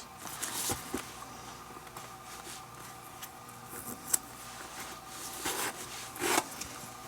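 Leather lace being pulled and worked through the lace holes of a baseball glove: irregular rubbing and rustling of leather on leather, with a sharp click about four seconds in and two louder drawn-through strokes near the end.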